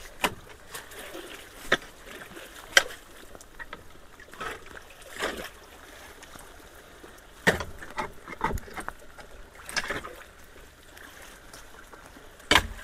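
Metal-tined rake dragging and scraping soggy leaf litter and debris in shallow water, clearing the intake of a collapsed culvert: irregular scrapes, rustles and small splashes, with a few sharper strikes, the loudest near the end.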